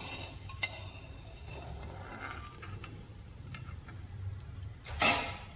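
Metal spoon moving through a kadhai of hot ghee, clinking against the pan with a few sharp clicks and a louder clatter about five seconds in.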